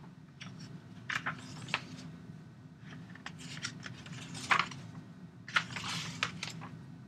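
Irregular clicks and taps of computer keys and a mouse, a few at a time with short gaps, over a faint steady low hum.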